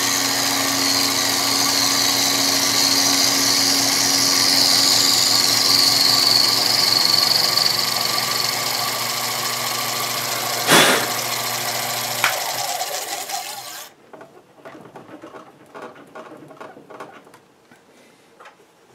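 Sherline benchtop milling machine running, a steady high motor whine over a low hum, with its end mill in a small metal bearing box. A sharp click comes about eleven seconds in. About a second later the motor stops and the spindle winds down, leaving only faint clicks and rustles of handling.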